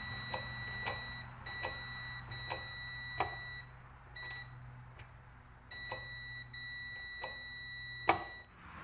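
A digital multimeter's continuity beeper sounds a steady high tone in long stretches, cutting off and coming back several times as the brake-light switch on the foot brake lever opens and closes. Light clicks come through it, the sharpest about eight seconds in.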